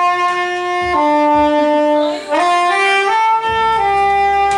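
Saxophone playing a slow melody of held notes that step up and down, ending on a long held note.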